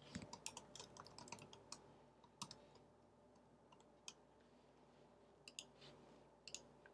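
Faint computer keyboard typing: a quick run of keystrokes over the first couple of seconds, then a few separate clicks.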